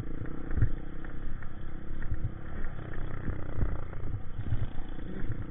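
Honda CRF150 dirt bike's single-cylinder four-stroke engine running as it rides along a rough grass track. Irregular low thumps come through the helmet-mounted microphone throughout.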